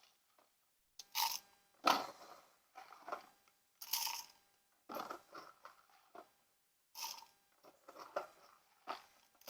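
Rock salt being scooped into a measuring cup: a string of short, separate scraping sounds at irregular intervals.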